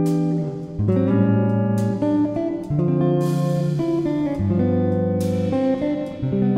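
Background instrumental music: a melody of held notes changing every second or so over a bass line.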